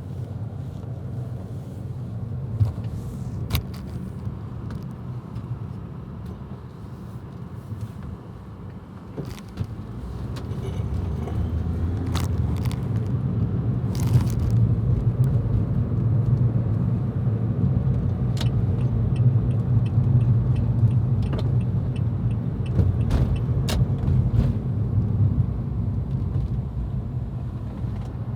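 Car cabin noise while driving: a steady low engine and road rumble that grows louder about ten seconds in as the car picks up speed, with occasional light clicks and rattles inside the cabin.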